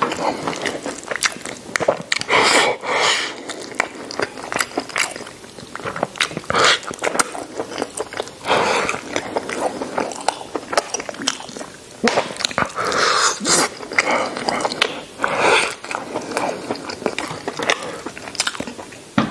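A man biting and chewing braised pork knuckle: a dense run of short mouth clicks, with louder bursts every few seconds as he takes fresh bites.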